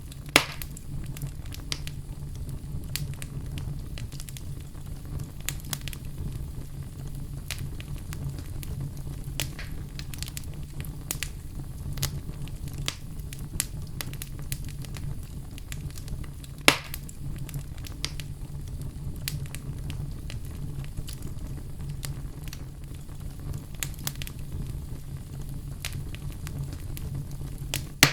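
Wood fire crackling in a fireplace: a steady low rumble under scattered crackles, with two loud pops, one just after the start and one a little past halfway.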